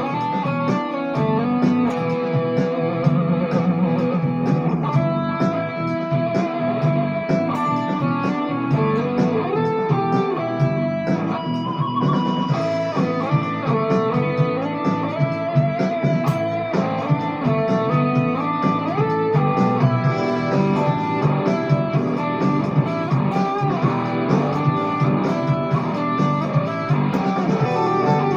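Ibanez RG350EX electric guitar played: single-note lead lines with held, wavering notes (vibrato) and pitch slides from string bends, over a fuller, denser lower layer.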